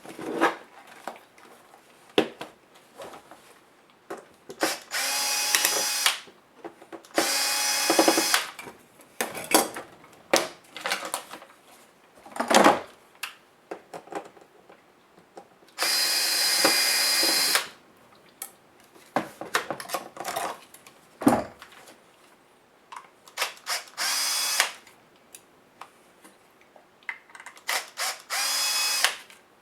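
Small power screwdriver running in five short bursts of one to two seconds, backing screws out of a laptop's case. Between the bursts, short clicks and light knocks of screws and plastic parts being handled.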